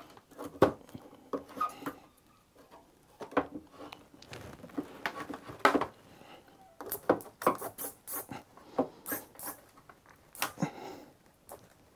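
Irregular scraping, rubbing and sharp clicks as a LiFePO4 cell wrapped in EVA foam tape is pushed and worked down into a battery case, a very tight fit against the neighbouring cells.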